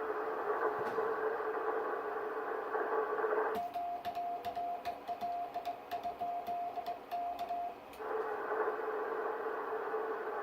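Shortwave receiver hiss in the narrow CW passband, with a steady tone in it. About three and a half seconds in, the band noise drops out and a Morse code sidetone is keyed for about four seconds, with the clicks of the paddle key, then the receiver hiss returns. This is typical of an operator sending a 'QRL?' to ask whether the frequency is in use.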